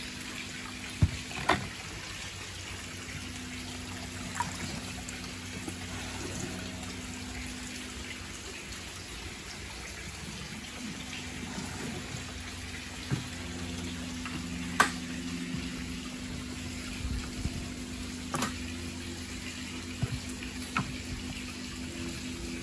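Water running steadily into a koi fry tank, over a steady low hum, with several sharp clicks or knocks scattered through.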